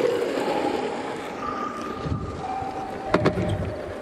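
Longboard wheels rolling over asphalt, with wind rushing on the microphone, and a couple of sharp clicks about three seconds in.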